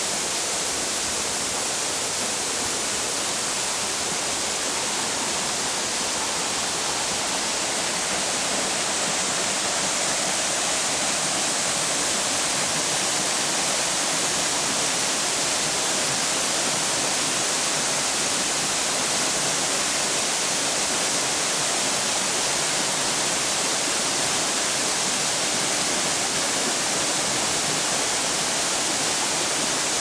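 Waterfall pouring down a rock face into a rocky pool, a steady rushing of water that grows slightly louder about ten seconds in.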